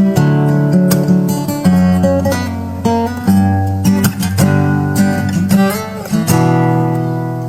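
Acoustic guitar music: chords strummed and plucked, each stroke ringing on before the next.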